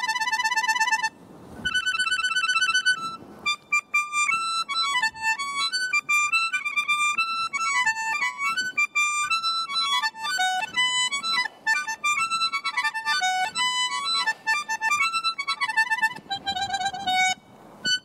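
Miniature concert garmoshka (a tiny Italian-type concertina) played in fast trills and quick runs of short, high, reedy notes, in the manner of birdsong such as a nightingale's or a sparrow's. It pauses briefly twice in the first few seconds and stops just before the end.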